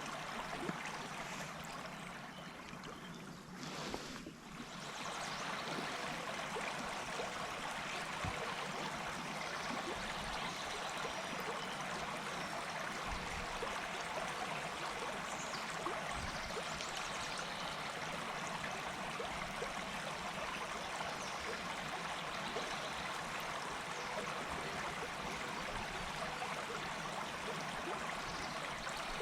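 River water flowing and trickling steadily, a continuous even rush with a brief lull about four seconds in.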